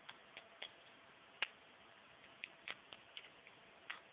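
Faint handling noise: about a dozen irregular small clicks and taps, the loudest about one and a half seconds in.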